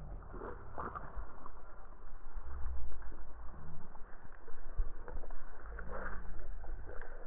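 A low rumble buffeting the camera microphone, uneven and louder from about two seconds in, with soft crunching from a sheep chewing watermelon right at the lens.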